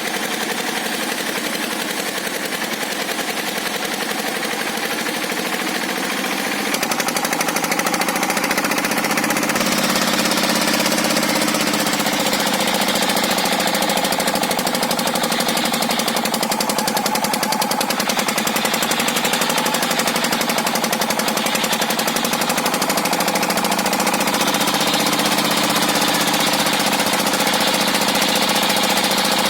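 Circular sawmill's engine running under load with a rapid knocking beat as the unsharpened saw blade cuts tough, stringy hardwood; the machine is labouring. It gets louder about seven seconds in, and the hiss of the cut brightens soon after.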